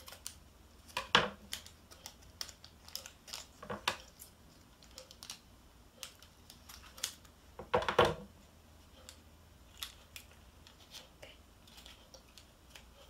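Scissors snipping open a small candy-kit powder packet: scattered short snips and clicks, the loudest about a second in and at about eight seconds.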